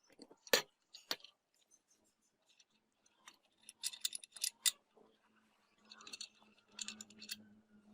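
Scattered small metallic clicks and clinks, as of metal parts and tools being handled, with a faint steady hum starting about three seconds in.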